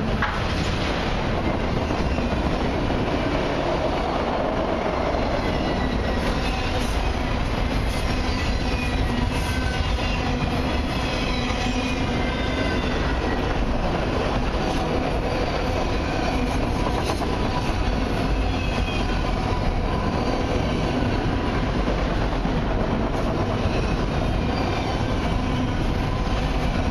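Autorack freight cars rolling past: a steady noise of steel wheels running on the rails, with scattered brief high-pitched wheel squeals.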